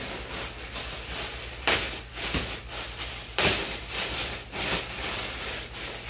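Rustling and handling of gift packaging, with two sharp knocks under two seconds apart as things are moved and set down.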